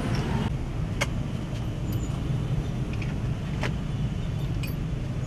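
Steady low background rumble with a handful of short sharp clicks and taps spread through it, from pliers and nails working cowhide onto the wooden body of a bedug drum.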